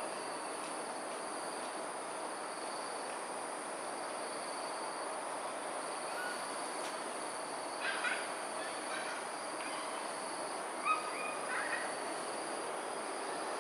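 Dusk ambience: steady background noise with insects trilling in two high, unchanging tones. Birds give a few short, harsh calls about eight seconds in and again near eleven seconds.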